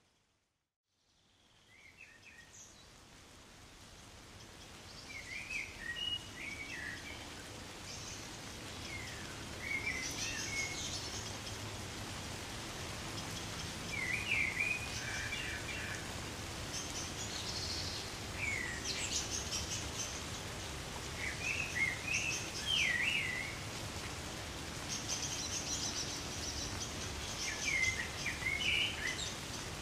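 Light rain in woodland: a steady hiss of drizzle with fine drops pattering on leaves and branches. A songbird repeats a short chirping phrase every few seconds. The sound fades up from silence over the first few seconds.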